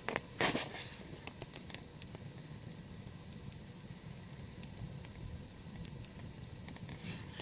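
Log fire burning: a steady low rush of flame with scattered small crackles and pops, and two louder cracks in the first second.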